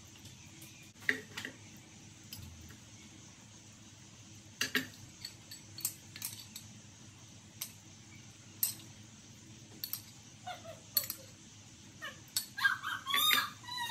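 Kitchen utensils at work: scattered clicks and taps of a knife cutting meat against a plate, then a spoon clinking and scraping in a small glass bowl of dipping sauce near the end, the loudest part.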